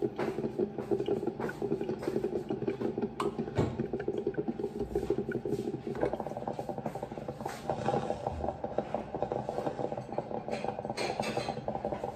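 Drip coffee maker brewing, with a continuous rapid, uneven gurgling and sputtering that shifts higher in pitch about halfway through.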